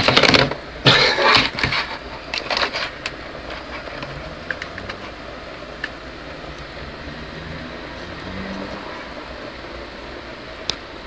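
Handling noise of a plastic camcorder held close to the microphone: rubbing and knocking bursts during the first three seconds as its flip-out LCD panel is swung open, then a few faint clicks over a steady low hum.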